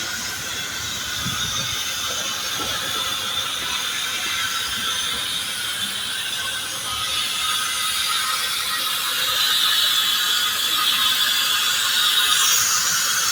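Steam from New York City's district steam system venting through a street vent with a loud, steady hiss that grows somewhat louder in the second half.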